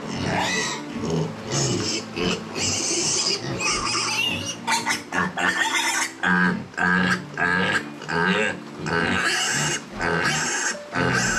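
Piglet squealing loudly and continuously, then in short repeated cries about a second apart, while held up by its hind legs just after an intramuscular iron injection into the thigh.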